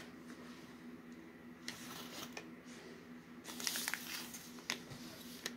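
Cardboard shipping box and its paper packaging being handled: faint, scattered rustles and scrapes, busiest about three and a half to four seconds in.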